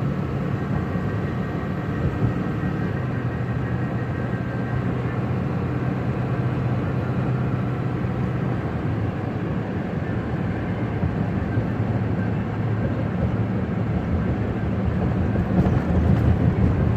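Steady running noise of a moving motor vehicle: a constant engine hum with road noise, getting a little louder and rougher near the end.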